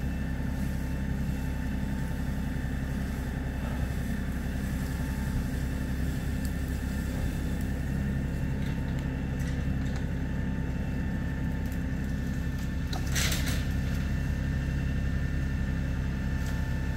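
New Holland Workmaster 40 compact tractor's three-cylinder diesel engine running steadily at a constant speed, with a brief high scrape about thirteen seconds in.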